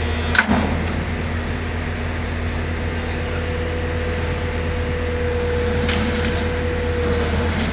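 Heavy diesel engine running steadily as a backhoe tows a trailer that is stuck in mud. There is a sharp knock about half a second in, and a thin steady whine from the middle until near the end.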